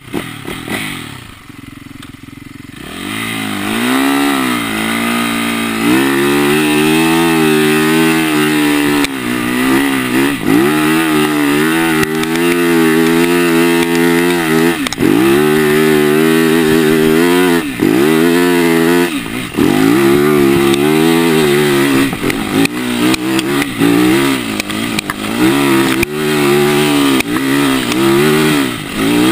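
2010 Yamaha YZ450F's single-cylinder four-stroke engine under hard riding: quieter for the first couple of seconds, then revving up and dropping back in pitch over and over as the throttle is worked and the bike shifts.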